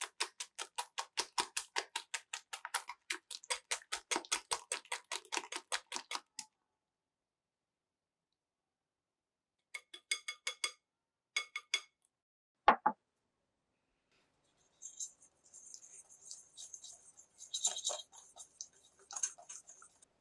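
Metal wire whisk beating egg whites in a glass bowl, its wires clicking fast against the glass at about five strokes a second, the stage of whisking until fine bubbles form. After a pause come two short bursts of clicks with a slight ring of the glass, then one sharp knock, the loudest sound, followed later by a soft scratchy rustle.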